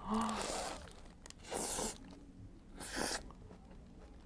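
Close-miked eating: a bite into a large burger and chewing, heard as three short crunchy, rustly bursts, with a brief hummed 'mm' at the very start.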